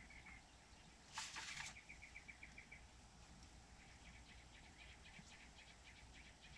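Near silence with faint bird chirps: a quick trill of evenly spaced notes around two seconds in, then scattered chirps. A brief rustle just after a second in is the loudest sound.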